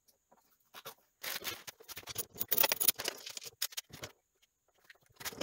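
Rapid small clicks and scrapes of a socket wrench and cable lug on a motor controller's terminal stud as a heavy power cable is bolted on; dense for a few seconds, then a single sharp click near the end.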